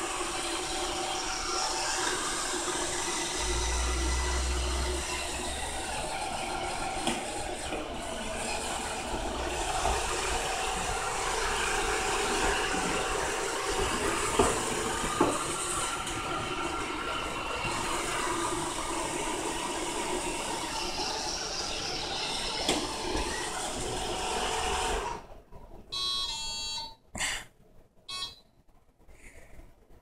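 Roomba robot vacuum running with a steady whir and motor whine. About 25 seconds in the noise cuts off, and a few short beeping tones follow.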